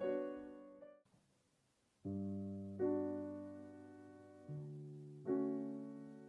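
A Yamaha upright piano's chord fades and cuts off about a second in; after a second of silence a grand piano plays slow chords, four strikes each left to ring and decay.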